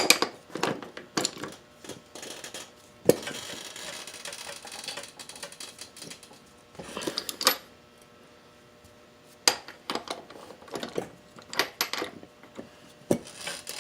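Metal hand tools and parts clinking and knocking against each other in irregular, scattered strikes, with one sharper knock about three seconds in.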